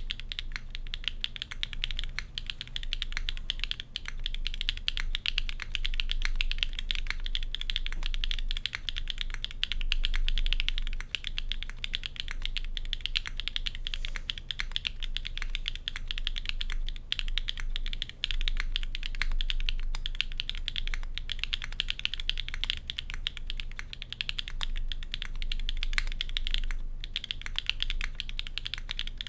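Continuous fast typing on a custom 60% mechanical keyboard with HMX KD400 switches in an aluminium plate: a dense stream of key clacks, with a short break near the end.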